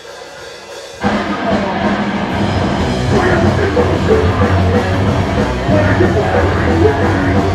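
Live hardcore punk band kicking into a song about a second in: drum kit, distorted guitars and bass playing together at full volume.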